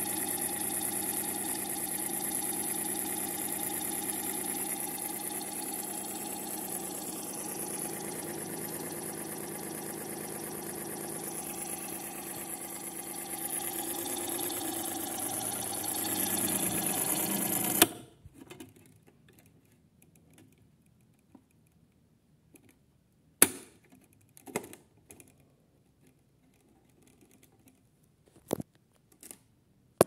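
Small electric motor of a Piko Sonnette toy washing machine running with a steady, rattling mechanical hum, which cuts off abruptly with a click about 18 seconds in. A few sharp knocks follow in the quiet afterwards.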